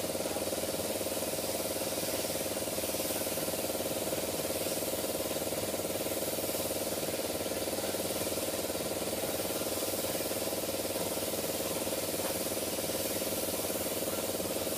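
An engine idling steadily, with an even, unchanging hum.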